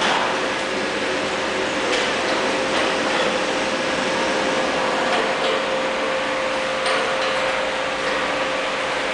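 Horizontal flow-wrap (pillow-pack) packing machine running: a steady mechanical whir with a constant tone and a few faint clicks.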